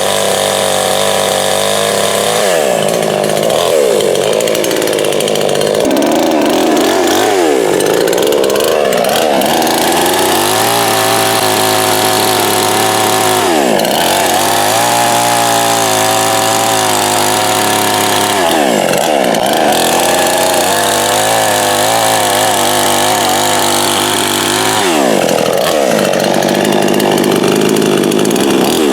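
Two-stroke 58cc gas chainsaw running hard, its engine pitch dropping and climbing back about five times.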